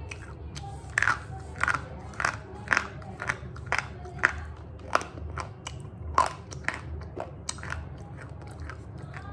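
Slate pencil being bitten and chewed close to the microphone: a run of sharp, brittle crunches, about two a second, over a low steady hum.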